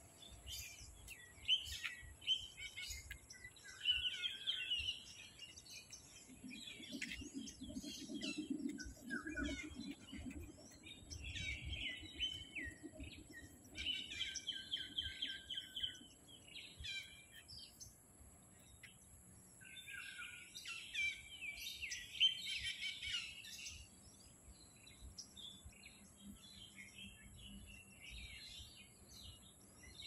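Several songbirds chirping and singing in the trees, short calls and warbled phrases coming in clusters, with a low hum swelling and fading about a third of the way through.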